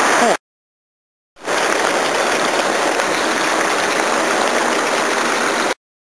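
Rainwater gushing from a PVC downpipe outlet onto the ground in heavy rain, making a steady rushing noise. The noise cuts out completely for about a second soon after the start, and again near the end.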